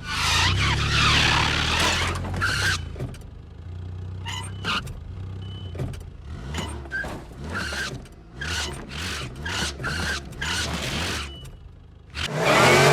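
Car engine running steadily, then a quick run of short knocks and squeaks from about four seconds in.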